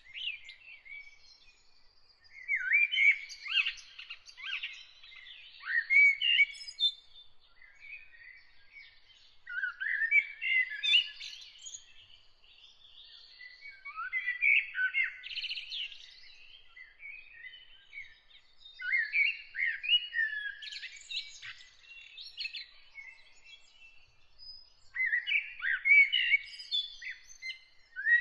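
A songbird singing in separate warbling phrases of a few seconds each, with short pauses between them, about six phrases in all, over a faint steady high-pitched tone in the background.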